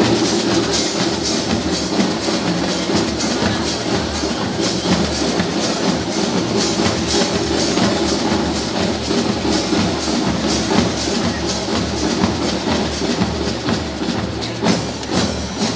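Fanfarra marching band playing, with drums keeping a steady beat under sustained brass notes.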